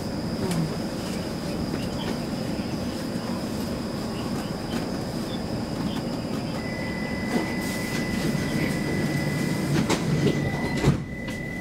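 Stockholm Metro C20 train standing at a station platform: a steady hum and hiss from the train's equipment. A thin high tone comes in about two-thirds of the way through, and a sharp knock sounds near the end.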